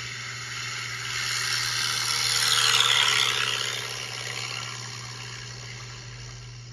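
Siri's airplane sound clip played through an iPhone's speaker: an airplane's engine noise swells to a peak about three seconds in, dropping in pitch as it passes overhead, then fades away.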